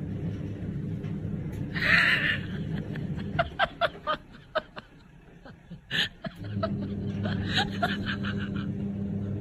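A person snickering quietly in short breathy bursts over a steady low background hum.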